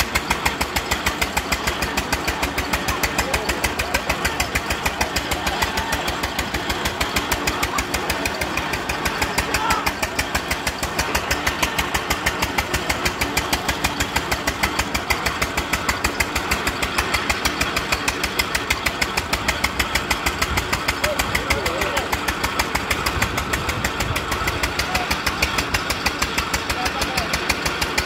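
Engine running at a steady speed with an even, rapid thumping beat, driving a fairground swing ride.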